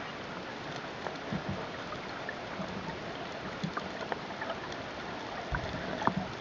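Underwater ambience heard through a camera housing: a steady hiss with scattered faint clicks and crackles, broken by a few dull knocks, the loudest about six seconds in.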